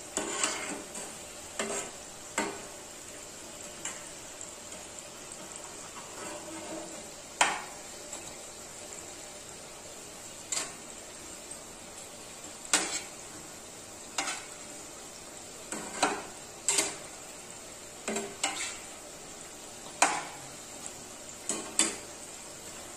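Oil sizzling steadily around semolina litti balls deep-frying in a pan, with a metal slotted spatula knocking and scraping against the pan every second or two as the balls are turned.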